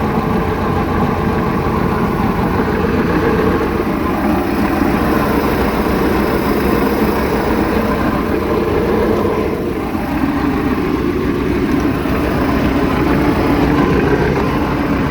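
Mercruiser 3.0LX four-cylinder marine engine idling roughly. Its note wavers unevenly, with a brief dip in level about ten seconds in.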